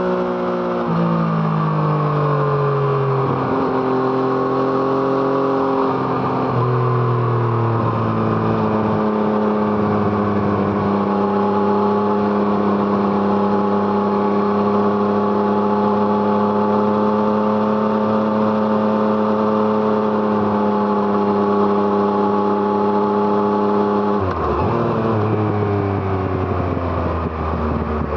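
Yamaha MT-09's 847 cc inline three-cylinder engine through an Arrow Thunder aftermarket exhaust, heard on the move. The revs fall in a few steps in the first seconds, then hold steady for a long stretch of cruising. Near the end the revs drop sharply, then rise again.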